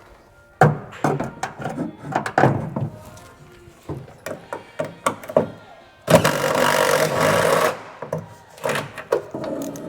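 Repeated knocks and clanks of hand tools and metal parts being worked loose, with a steady mechanical noise for about a second and a half past the middle, then more knocks.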